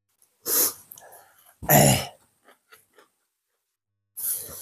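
A person coughing and clearing the throat in three short, loud bursts, with faint mouth clicks between them.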